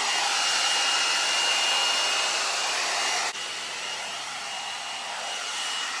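One-step hot-air brush (a hair dryer brush) running, a steady rush of air with a thin high whine over it. The sound drops suddenly to a quieter level a little after three seconds in.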